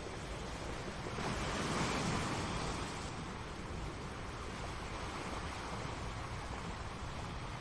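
Ocean waves breaking on the shore, one wave swelling louder about a second in and washing back over the next two seconds.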